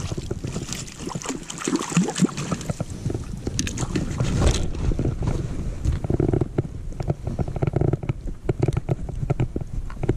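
Irregular crackling and knocking handling noise close to the microphone, over a low rumble of wind on the microphone.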